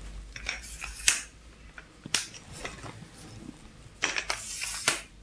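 Simpex 1200 aluminium tripod being handled: its flip-lever leg locks snap and its legs slide, giving a few sharp clicks and a burst of clatter near the end.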